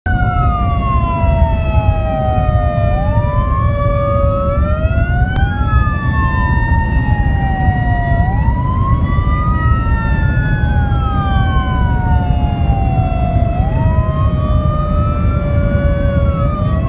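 Two emergency vehicle sirens wailing slowly out of step with each other, each rising and falling every few seconds. They are heard from inside a moving rescue vehicle over heavy engine and road rumble.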